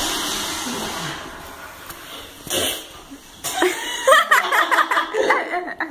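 A steady rushing noise fades out over the first two seconds. Then, from about halfway through, people chuckle and giggle in short high-pitched bursts.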